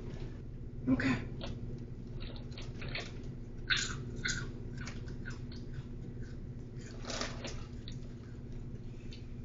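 Short crinkly rustles of a plastic snack package being handled and crunchy chewing, in a few brief bursts about a second in, around four seconds in and near seven seconds, over a steady low hum.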